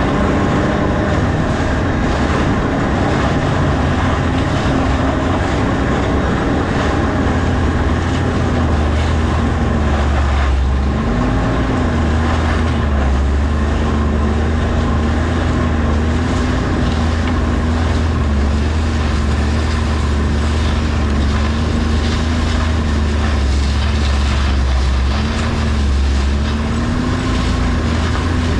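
An engine running continuously, its pitch wavering slightly, dipping about ten seconds in and then picking back up, over a heavy low rumble.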